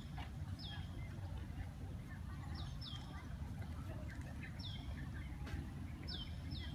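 A bird calling repeatedly: each call a short, high whistle that slides down in pitch and then holds briefly, often given in pairs, every one to two seconds. A steady low rumble runs underneath.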